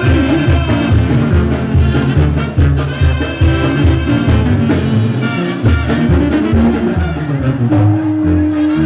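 Mexican brass band music with a steady tuba-and-drum beat, about two beats a second, under held brass notes.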